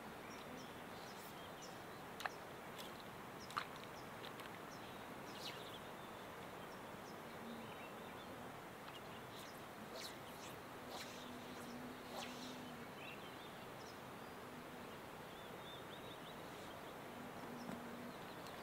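Quiet outdoor background hiss with faint high chirps scattered through, two light clicks a couple of seconds in, and a faint low hum that comes and goes several times in the second half.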